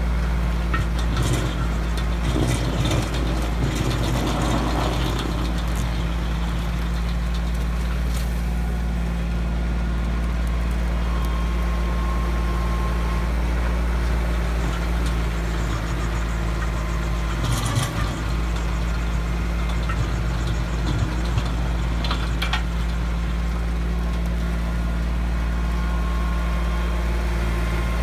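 Compact tractor engine running steadily under load, driving a Woodland Mills WG24 PTO stump grinder whose 24-inch cutter wheel grinds into a stump and the soil around it. A few sharp cracks and clatters of cutting and flying chips come now and then.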